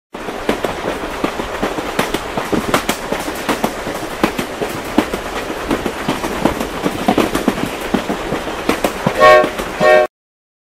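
Train sound effect: rapid, irregular wheel clatter on rails, then two short whistle blasts near the end before it cuts off suddenly.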